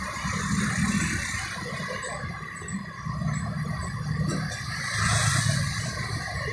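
Road traffic: the continuous, fluctuating rumble of vehicle engines and tyres passing.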